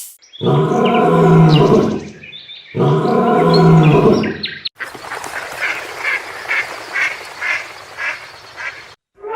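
Two long, loud animal calls, each about a second and a half, followed by a different run of short calls repeating about twice a second.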